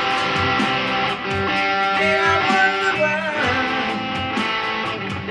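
PRS electric guitar playing a lead line with bent and wavering notes over a steady backing beat.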